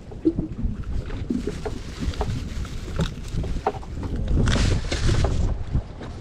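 Water slapping against a small boat's hull with wind rumbling on the microphone, over short knocks and rustles as a caught fish is wrapped in a cloth and unhooked. A louder rushing hiss swells about four and a half seconds in and fades about a second later.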